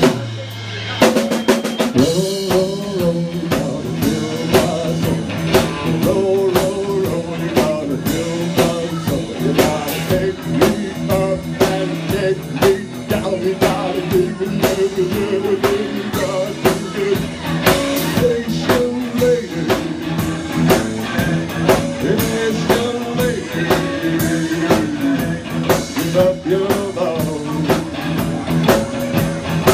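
Live blues-rock band playing: electric guitar, bass and drum kit with a steady beat, and a singer at the microphone. Right at the start the band drops to a single low bass note for about a second, then comes back in full.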